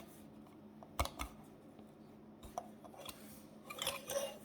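A hand scraper clicking and scratching at brittle old varnish on a walnut veneer panel: one sharp click about a second in, a few light ticks, then scratchy scraping near the end.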